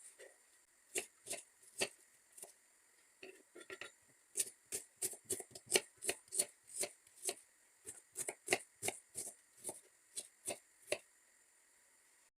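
Knife chopping an onion finely, a few spaced strokes and then a steady run of about four strokes a second that stops near the end.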